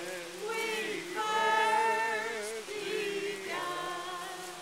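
A small group of men and women singing unaccompanied, holding long notes with a wavering vibrato.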